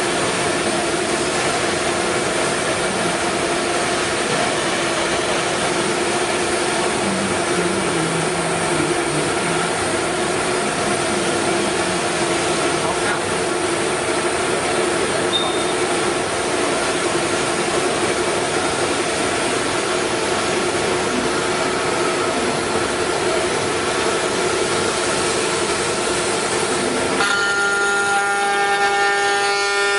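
Five-axis CNC router running with a steady, multi-tone machine whine. Near the end the sound changes to a new, higher set of tones as the machine head moves down to the wooden workpiece.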